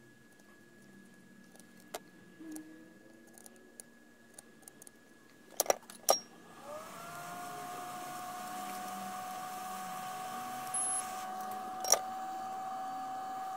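Two sharp clicks about six seconds in, then a small electric fan or blower motor starts up: a hum that rises in pitch and settles steady, with a hiss of moving air.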